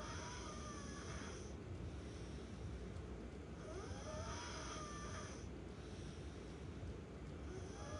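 A sleeping person snoring, a snore about every four seconds, each with a whistling tone that rises and falls, over steady low background noise.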